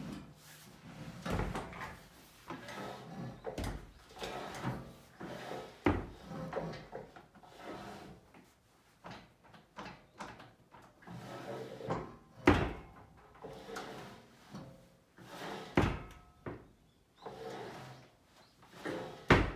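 Herman Miller Envelop desk's movable work surface being pulled toward and pushed back along its glide mechanism, sliding with rubbing and repeated knocks and clunks. The loudest clunks come about 12 and 16 seconds in and near the end.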